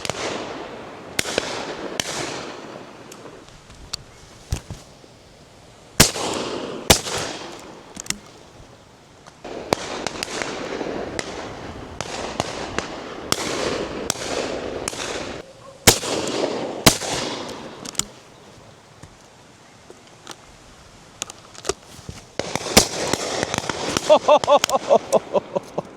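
Shotgun fire on a driven partridge and pheasant shoot, many shots echoing from guns along the line. Loud close pairs of shots about a second apart, one pair about six seconds in and another about sixteen seconds in, are the shooter's own double shots with Eley Zenith cartridges. A quick run of clicks comes near the end.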